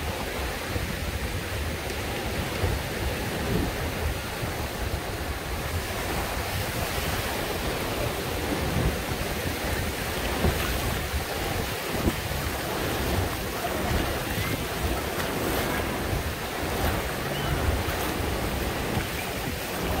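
Small surf breaking and washing up over a sandy beach as a steady rush of noise, with wind rumbling on the microphone.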